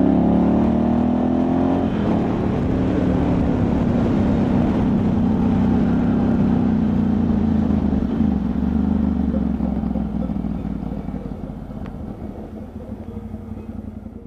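Ducati Multistrada 1100S's air-cooled V-twin under way, revs rising for about two seconds, then a gear change and steady to slowly falling revs, over a rumble of wind on the microphone. The sound fades out over the last few seconds.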